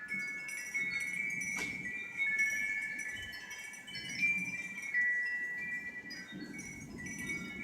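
Wind chime ringing without pause, several clear tones overlapping and sounding in turn as the wind stirs it, over a low rush of wind that swells a few times.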